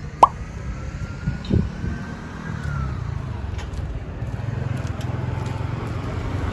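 A motor vehicle running with a steady low rumble, with two short sharp knocks about a quarter second and a second and a half in.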